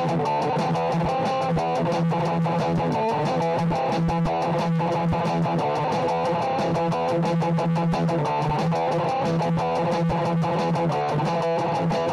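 Instrumental electric guitar music: a melodic guitar line over a steady low accompaniment.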